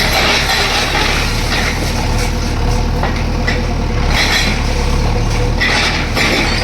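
A heavy engine running steadily with a low drone, with repeated noisy surges on top of it every second or so.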